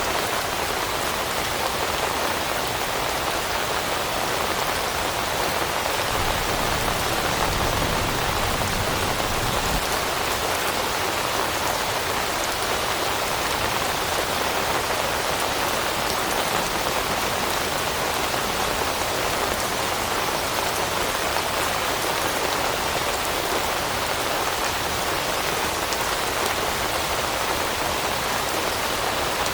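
Steady, even rain falling, with a brief low rumble swelling underneath about six to ten seconds in.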